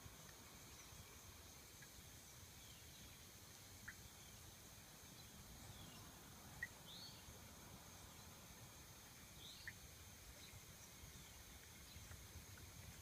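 Faint swamp ambience: cicadas making a steady, high drone, with a few short rising chirps and brief ticks over it.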